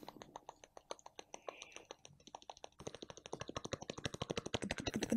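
A man imitating a helicopter with his mouth into a microphone: a run of clicking 'ta-ka' syllables that starts slow and soft, then speeds up and grows louder, like rotor blades spinning up.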